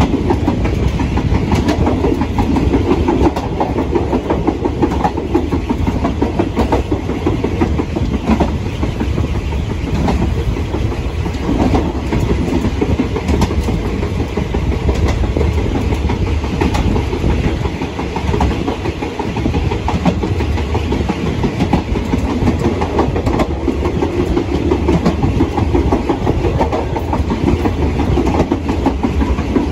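Passenger train carriage rolling along the track, heard from inside at the open rear door of the last car: a steady rumble of wheels on rail with frequent irregular clicks and clatter from the rail joints. The train is climbing a grade up the pass.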